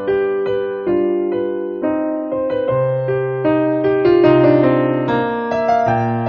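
Background piano music: slow, sustained chords with a low bass note entering about three seconds in.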